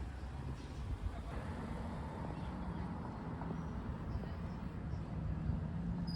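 City street ambience: a steady rumble of traffic with people's voices in the background.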